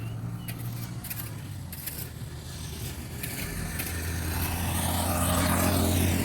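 A motor vehicle's engine running with a steady low hum that grows louder over the last few seconds, as if drawing closer.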